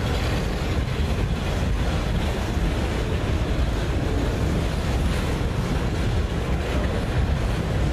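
Freight train of enclosed autorack cars rolling past close by: a steady rumble of steel wheels on rail.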